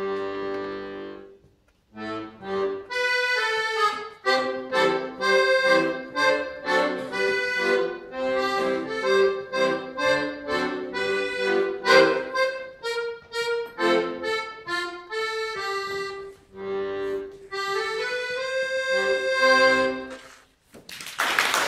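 Piano accordion playing a solo piece, quick successions of short notes over sustained lower notes, with a brief pause about two seconds in. The music stops near the end and applause begins.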